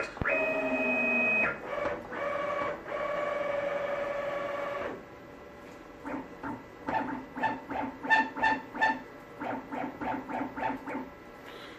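Stepper motors of a home-built CNC machine whining as its axes move on a test run. Two longer moves come first, the first ramping up in pitch, then a quick run of short jogs, about three a second.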